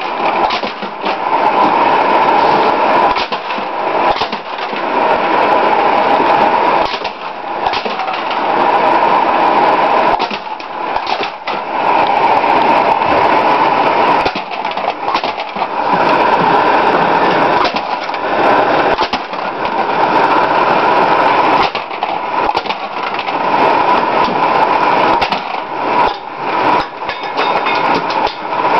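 Homemade belt-driven aluminum can crusher, built from bicycle wheels, running with a steady mechanical clatter and frequent sharp knocks as empty cans are crushed. The noise dips briefly every few seconds.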